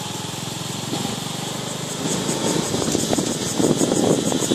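A small engine running steadily, getting louder and rattlier after about two seconds, with a fast, regular high-pitched pulsing over it.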